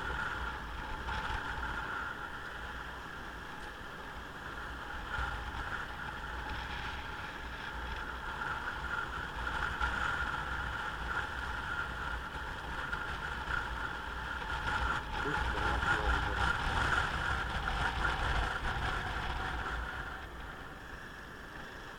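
Motorcycle riding on the road: engine and road noise with a low rumble underneath, growing louder a little past the middle and easing off near the end.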